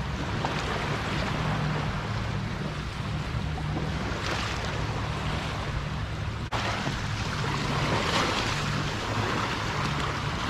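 Outboard motor running steadily as a Honwave T38IE inflatable boat moves through the sea, with rushing water and wind buffeting the microphone.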